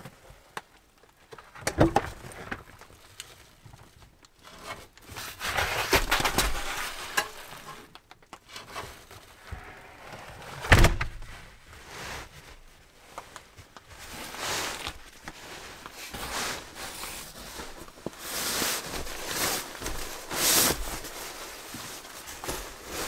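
Bedding being handled and laid out on an artificial-grass floor: a quilted mattress pad and then a sleeping bag rustling and swishing as they are spread, with scattered soft thuds and one sharp knock about eleven seconds in.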